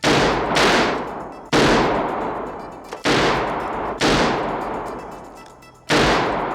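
Six heavy pistol shots from a .44 AutoMag firing cut-down .308 rifle cases. The first two come in quick succession and the rest one to two seconds apart, each with a long ringing tail that dies away.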